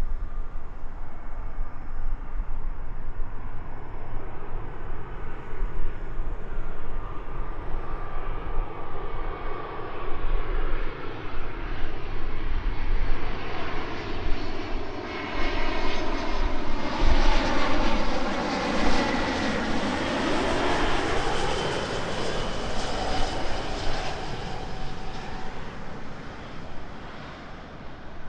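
Jet airliner on landing approach passing close by: its engine noise builds to a peak about two-thirds of the way through, the whine falling in pitch as it goes past, then fades away.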